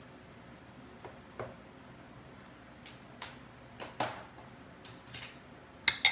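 Kitchen utensils and containers being handled: scattered light knocks and clicks, ending in two sharp metallic clinks near the end.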